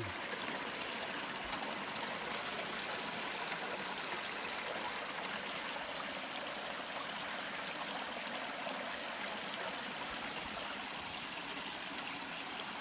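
A forest stream running steadily, an even rushing of water with no breaks.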